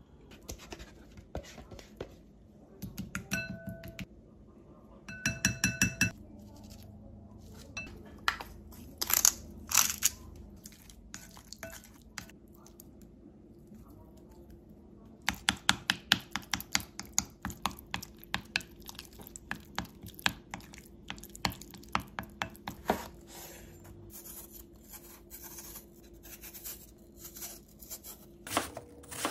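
A metal spoon clinking and scraping against a glass mixing bowl while a boiled egg is mixed into a thick sauce, in runs of quick taps, two of them ringing in the first six seconds. Near the end, a kitchen knife peels an apple over a wooden cutting board.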